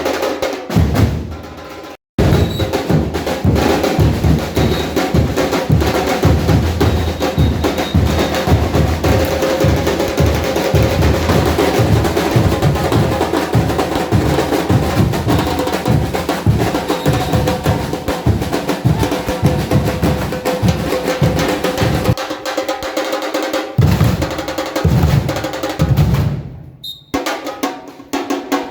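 Batucada drum group playing: deep bass drums under fast snare rolls and sharp hits in a driving rhythm. The sound cuts out for a moment about two seconds in, and the bass drums drop out twice near the end while the snares carry on.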